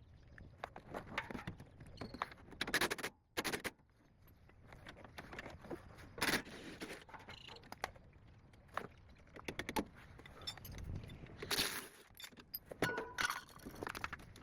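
Metal hand tools and parts clinking, clanking and scraping in an irregular run of short knocks, with a few louder clanks, as shock absorbers are being replaced on a car.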